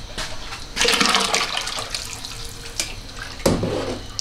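Water pouring and splashing, with small clinks, strongest about a second in, and one dull knock a little before the end.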